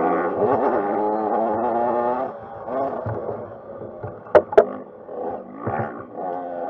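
Dirt bike engine running hard, its pitch rising and falling as the throttle is worked, with two sharp knocks close together about four and a half seconds in.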